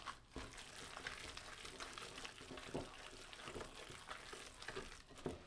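A hand kneading and squeezing a raw minced-pork and egg mixture in a ceramic bowl, working it to a sticky texture: faint, irregular wet squishing.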